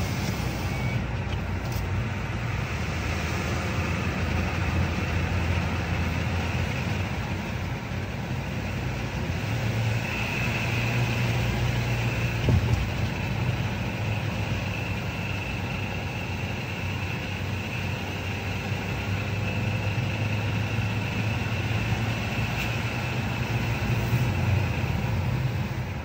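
2024 Kia Sportage Hybrid's engine heard from the cabin with the windows down, over road and wind noise. About ten seconds in, a steady high whine from the engine under acceleration comes in, briefly extra loud, then fades near the end. This is the awful, abnormal noise the owner is complaining about.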